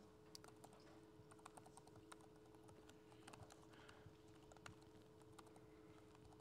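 Faint typing on a laptop keyboard: scattered soft key clicks over a low steady hum.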